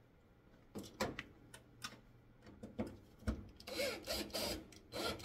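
Sharp clicks and knocks of metal parts being handled as a replacement tanning bed ballast is lined up on its metal mounting base, coming faster and louder in the last second and a half.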